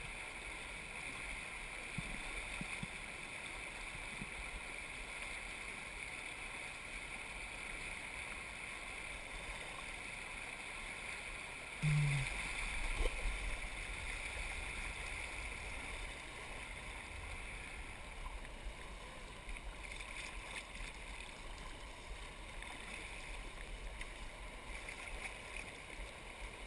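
Steady rush of whitewater as a kayak runs a river riffle, with a sudden thump about twelve seconds in, after which the water is louder for a while.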